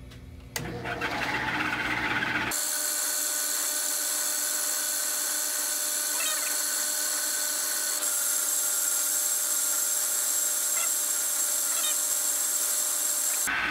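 A drill press starts up about half a second in and runs steadily while a small bit is fed into a brass part, drilling one of the half nut's 1/8-inch pin holes.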